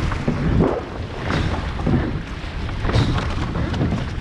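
Wind buffeting the microphone over water rushing and splashing along a rowed surf boat's hull, swelling and easing in repeated surges.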